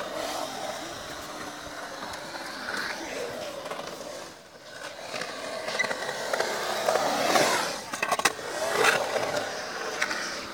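Skateboard wheels rolling on the concrete of a skate bowl. The rumble swells and fades as the skater carves the walls, with a quick run of sharp clicks about eight seconds in.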